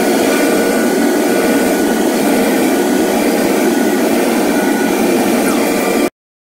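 MAKA PE 70 five-axis CNC machining centre running as it works a wooden block: a loud, steady mechanical noise with a faint high whine. It cuts off suddenly about six seconds in.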